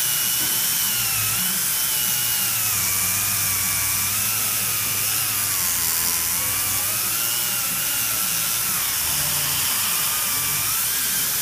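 Dental handpiece running a Spacefile stripping blade between the lower front teeth, reducing enamel between them: a motor whine that wavers slowly up and down in pitch as the load changes, over a steady hiss.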